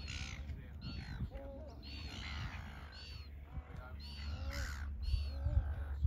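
A flock of gulls calling repeatedly, short harsh cries coming about once or twice a second, over a steady low rumble.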